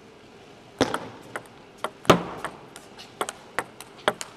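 Table tennis ball clicking off the bats and the table in a rally: sharp single clicks, a few spread out at first, then coming faster, two or three a second, near the end.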